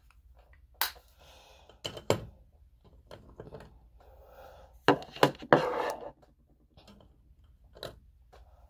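Makeup compacts and brushes being handled: scattered clicks and taps with short rubbing and rustling, the loudest knocks about five seconds in.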